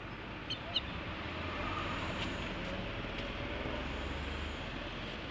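Steady background rumble and hiss of outdoor ambience, with two faint short high chirps under a second in.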